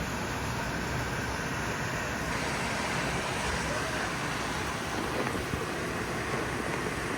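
Heavy rain pouring down in a storm with wind, a steady, even hiss.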